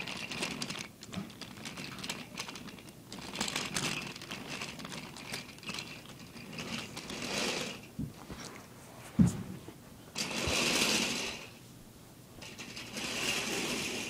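Small battery-powered motor of a toy train whirring in several spells of a second or so, among clicks and rattles of plastic track and handling.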